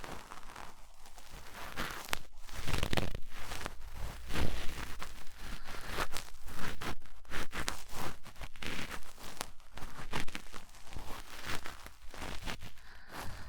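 Cotton swab rubbing and scraping inside the ear of a 3Dio binaural microphone: close, crackly, irregular scratching strokes, a little louder a few seconds in.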